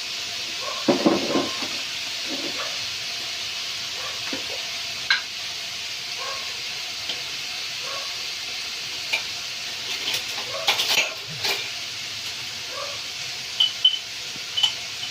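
Browned chicken sizzling steadily in a frying pan while a utensil stirs it, scraping and clinking against the pan, with a cluster of knocks about a second in and more around ten seconds in.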